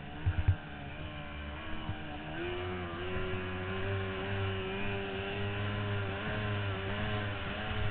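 Outboard racing engine of a small C-stock runabout running at speed, its pitch stepping up a little about two and a half seconds in and then holding steady. A few sharp knocks come just after the start.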